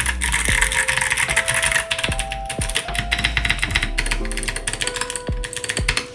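Fast typing on an Akko 5075 mechanical keyboard with Kailh Box Jade clicky switches: a dense run of sharp, crisp clicks that thins out near the end.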